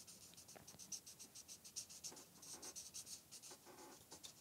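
Faint scratching of a pen drawing on paper in many short, quick strokes.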